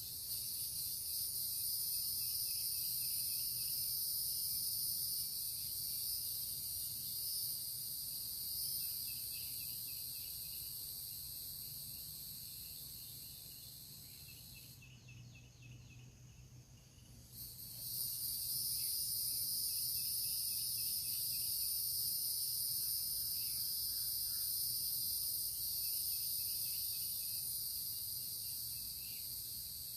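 Insect chorus: a steady, high, layered buzzing that drops out for about three seconds midway, then starts again.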